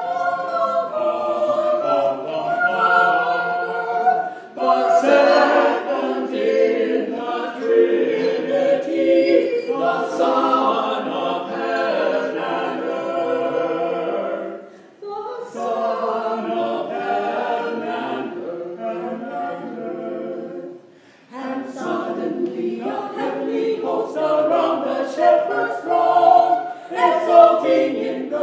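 A choir singing unaccompanied, in long phrases broken by short pauses.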